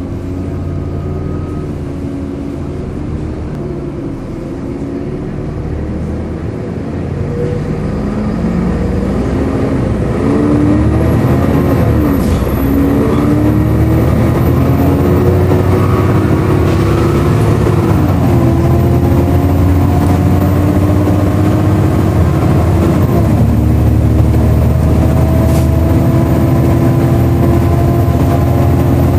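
Volvo B7LA bus's diesel engine and loud, hoover-like cooling fan heard from on board, the engine note rising and dropping through gear changes. The sound grows louder about ten seconds in and stays loud.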